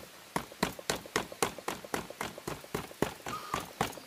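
A rapid run of sharp, evenly spaced knocks or steps, about four a second.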